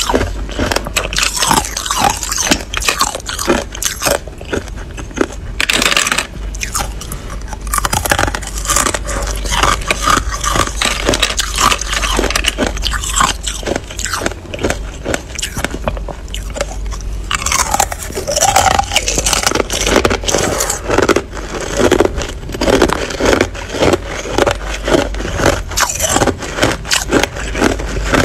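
Hard clear ice being bitten and chewed close to the microphone: a dense, irregular run of sharp cracks and crunches as the ice breaks between the teeth.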